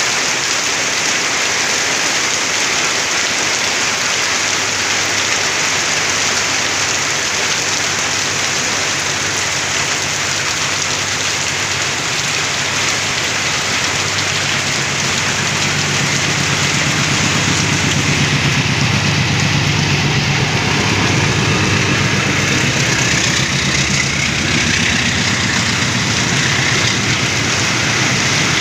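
Heavy rain falling steadily, with a diesel locomotive hauling a passenger train approaching and passing. Its low engine hum builds from about halfway through and stays strong as the coaches go by near the end.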